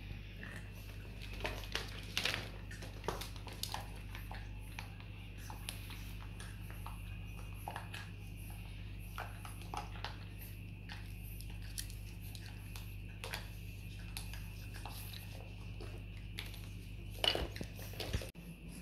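Room tone: a steady low hum under scattered faint clicks and taps, with a brief louder rustle or scuffle near the end.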